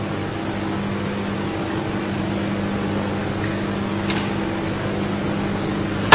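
Steady low hum of the hall's room tone while the player holds still over the cue ball, with one faint click about four seconds in.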